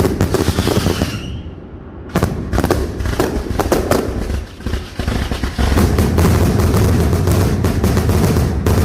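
Castillo aerial fireworks display: rapid, densely packed shell bursts and crackle. It drops off briefly about a second in, then builds into a continuous barrage with heavy low booms from about halfway through.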